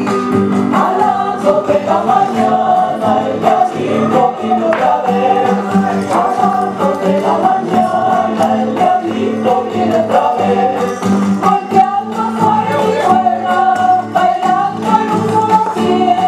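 Chilean folk dance music: several voices singing together over a rhythmic instrumental accompaniment.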